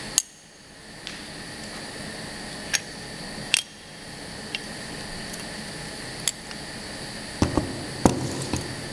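Automatic component insertion machine running: a steady mechanical hum broken by sharp clicks at uneven intervals, with a cluster of louder knocks near the end.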